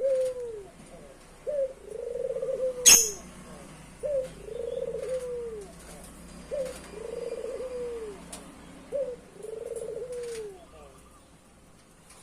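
A young puter (Barbary dove), four and a half months old, cooing: four times, about every two and a half seconds, a short rising note followed by a long arched coo. A single sharp click about three seconds in is the loudest sound.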